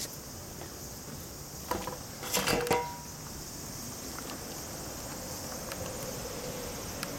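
Insects droning steadily at a high pitch outdoors. About two seconds in comes a short burst of knocks and clatter with a brief ringing tone.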